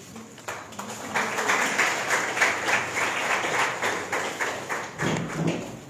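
A small group of people clapping, starting about half a second in and dying away near the end.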